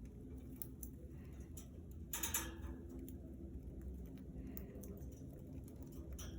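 Budgerigars moving about their cage: scattered faint clicks and ticks, with a brief louder rustle about two seconds in, over a low steady hum.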